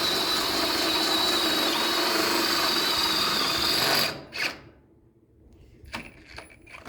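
Cordless drill running steadily at speed, boring a hole for a half-inch bolt, with a high whine. It stops about four seconds in, followed by a few light knocks and clicks.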